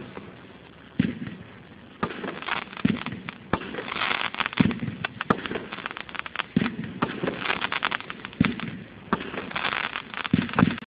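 Big Top 42-shot 500 g consumer fireworks cake firing shot after shot: sharp reports about once a second, with stretches of crackling between them.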